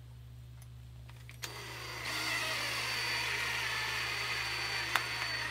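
Cordless drill starting about a second and a half in and running steadily with a high whine, driving a long deck screw down through the brass ferrule into the walking stick. One sharp click near the end.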